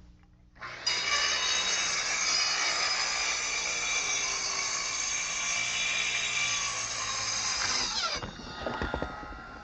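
Circular saw starting up and cutting steadily through plywood floor sheathing along a snapped chalk line for about seven seconds, then winding down as the trigger is released.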